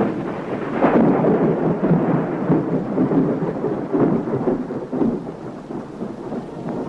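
Storm sounds: steady rain with rolling thunder, swelling louder about a second in and again around four seconds.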